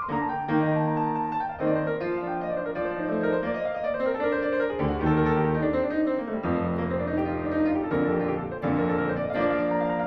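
Background piano music, held notes and chords changing every second or so.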